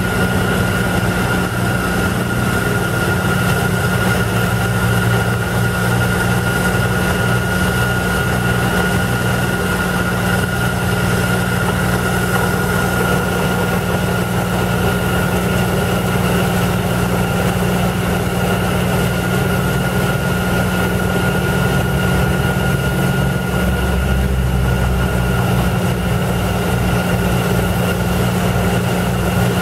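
Airmobil 432 pneumatic drilling rig running on compressed air while drilling into the slope. It makes a steady mechanical din with a constant high whine over a low hum.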